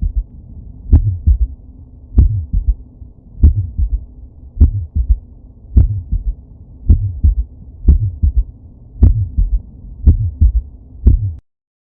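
Heartbeat recording with a third heart sound (S3): each of about ten beats, roughly one a second, is a sharp thud followed by softer low thuds, giving a three-part gallop rhythm. It stops abruptly near the end.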